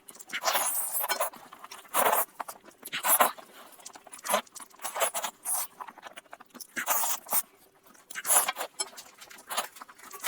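Close-miked chewing and mouth-smacking of someone eating lamb chops, a run of irregular smacks and crunchy chews about one every half second to second.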